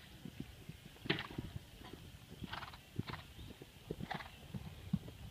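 Horse cantering on soft arena footing: a rolling run of dull hoofbeat thuds, with four or five short breathy blows from the horse in time with its stride.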